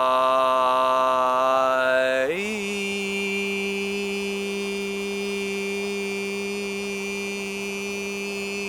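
A man's voice chanting a long, steady held vowel tone, an open "ah". About two seconds in, it glides up in pitch to a higher "ee" and holds there, steady. These are Qi Gong healing sounds, sung rising from the belly vowels toward the head.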